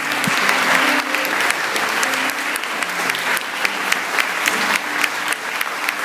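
Audience applauding with dense, steady clapping, while a grand piano plays faintly underneath.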